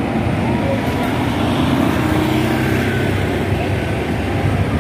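Engine of a double-decker bus running as it pulls away along the road, with steady street traffic noise around it.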